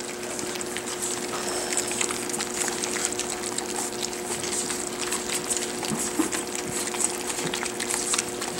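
A litter of puppies lapping and chewing wet, rehydrated food from a stainless steel dish: a dense, continuous patter of quick wet clicks. A faint steady hum sits underneath.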